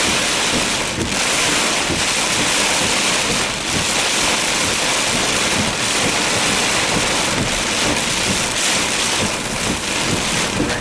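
Heavy storm rain pouring onto a vehicle's roof and windows in strong wind: a steady, loud rush with no letup.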